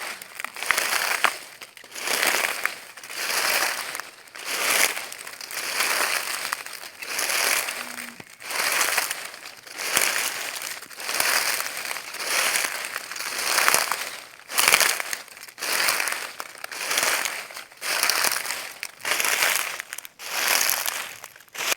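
Footsteps walking on dry leaves: a crisp crunch and crackle with every step, at a steady walking pace of a little more than one step a second.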